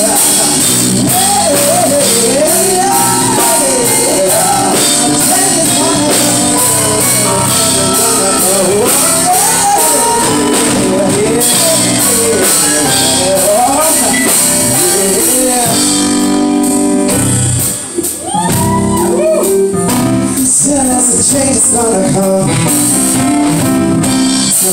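Live band with a singer: sung vocals over drum kit, electric guitar and keyboard. The band drops out for an instant about eighteen seconds in, then comes back in.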